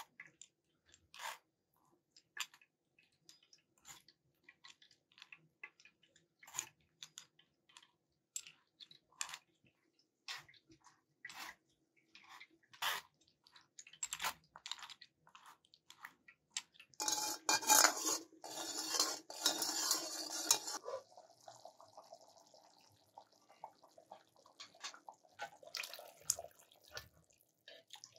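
Metal spoon scraping and clicking against a stainless-steel mesh sieve as soaked tamarind pulp is pressed through it, in scattered separate strokes. About two-thirds of the way through comes a louder, continuous stretch of rapid scraping lasting a few seconds.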